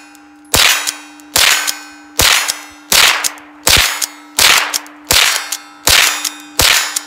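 Rossi pump-action .22 LR rifle fired nine times in quick succession, about one shot every three-quarters of a second as the pump is worked, with steel targets clanging and ringing on after the hits.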